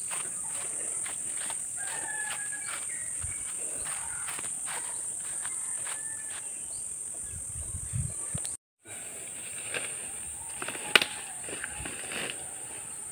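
Steady high-pitched insect chorus, with footsteps through grass and the rustle of a mesh net being handled. The sound cuts out briefly about two-thirds of the way through.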